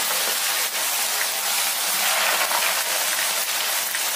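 Peeled field beans (avare bele) deep-frying in a pan of hot oil: a steady, dense sizzle. The beans are in the early part of a frying that takes about five minutes, with the oil still bubbling hard.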